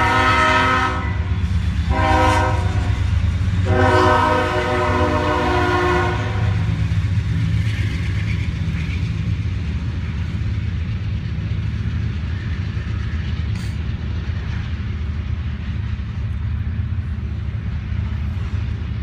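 Freight locomotive air horn sounding for the grade crossing: a blast ending about a second in, a short blast, then a longer blast from about four to six seconds in. After it, the steady low rumble of the CSX locomotives and double-stack container cars rolling through the crossing.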